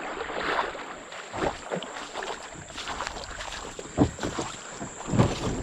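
Kayak hull being dragged through a shallow creek riffle, with water running over it. Two loud knocks of the hull come about four seconds in and again just after five seconds.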